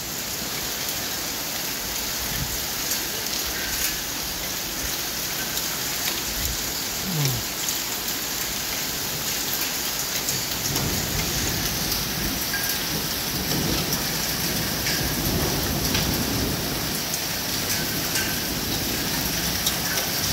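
Rain mixed with small hail pattering steadily on roof tiles and walls, with many sharp little ticks of hailstones striking. A low rumble of thunder builds in the second half.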